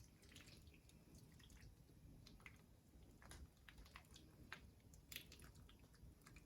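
Faint, scattered wet drips and small clicks of sauce being poured over snow crab legs and shrimp.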